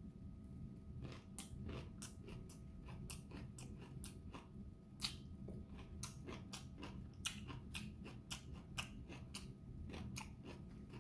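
Close-up chewing of a mouthful of kimchi made from salt-pickled napa cabbage, with rice, the crisp cabbage crunching and crackling several times a second, beginning about a second in.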